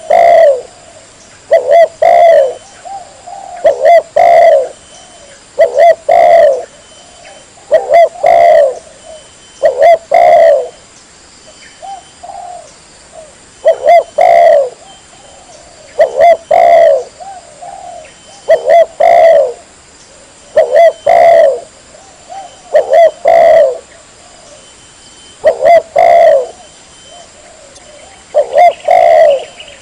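Spotted dove cooing over and over, loud and close, one phrase about every two seconds, each a few quick notes running into a longer coo.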